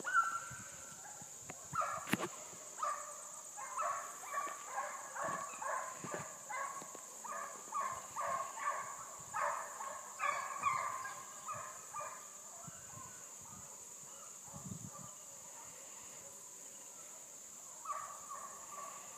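Hounds baying as they run a fox's trail: a string of overlapping calls about two a second that dies away after about twelve seconds, with a few more calls near the end. A steady high insect drone runs underneath.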